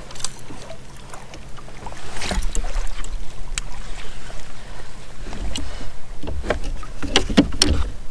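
Kayak on the water: scattered knocks and clicks with low thumps against the hull, heaviest in the second half.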